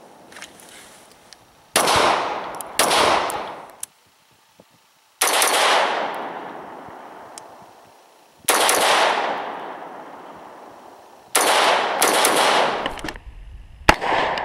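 Rifle shots from an AR-15 carbine with a Battlecomp 1-inch muzzle brake/compensator, about seven rounds fired at irregular intervals, several close together near the end. Each loud crack is followed by a long rolling echo.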